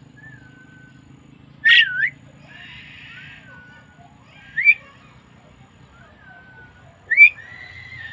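Javan myna giving loud, sharp whistled calls three times, a couple of seconds apart, with softer falling whistles between them. A steady low hum runs underneath.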